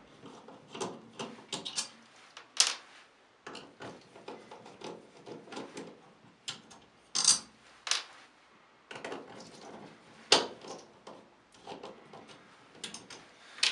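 Screwdriver working out the small Pozidriv screws that hold the temperature lever on an Aqualisa thermostatic shower mixer valve: irregular clicks and scrapes of the driver, screws and lever, with a few louder clicks.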